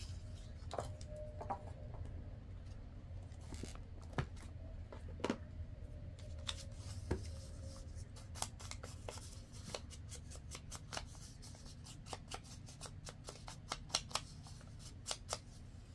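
Hands handling stiff coffee-dyed paper: soft rustling and rubbing, with scattered light taps that thicken into a quick run of small ticks in the second half.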